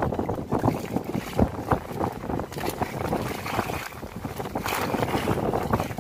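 Choppy seawater splashing irregularly against the hull of a small outrigger fishing boat, with wind buffeting the microphone.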